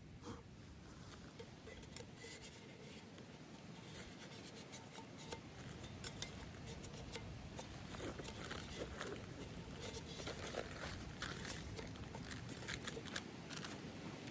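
Many small, sharp clicks and light crinkling from something being handled, growing busier in the second half.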